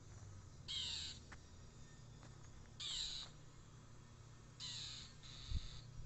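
A bird giving four short, harsh calls spaced about two seconds apart, the last two back to back: a territorial alarm cry from a bird that is defending the spot and has been diving at a person, which he takes for guarding a nest.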